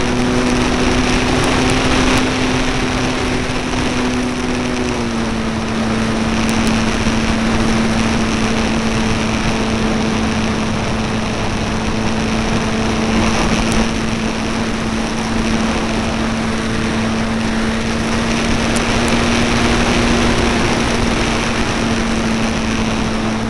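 Electric motor and propeller of an E-flite Apprentice RC trainer plane, heard from a camera mounted on the airframe in flight. It is a loud, steady hum over a rushing wind noise, and its pitch dips slightly about five seconds in.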